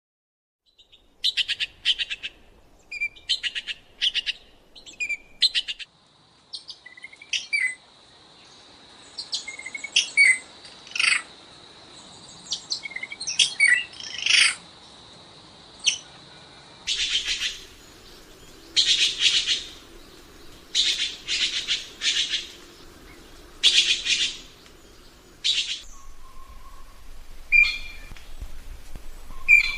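Songbirds calling in a string of short, quick chattering phrases, about one a second. A faint steady high whistle runs beneath them for a while, and the phrases grow louder and fuller about halfway through.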